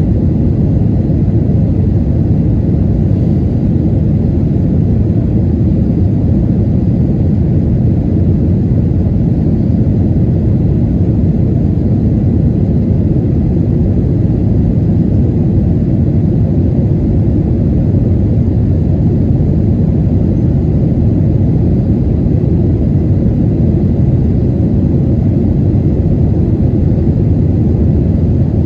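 Steady low rumble of a Boeing 737-800 in flight, its CFM56-7B engines and airflow heard inside the passenger cabin.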